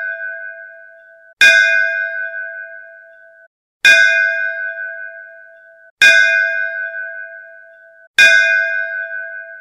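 A bell is struck about every two seconds, four strokes in all, following the fading ring of a stroke just before. Each stroke rings out with a clear tone and fades, then stops abruptly.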